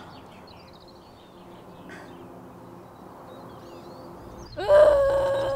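Quiet forest ambience with faint, scattered bird chirps. About four and a half seconds in, a loud held tone with a hissy edge starts suddenly and carries through to the end.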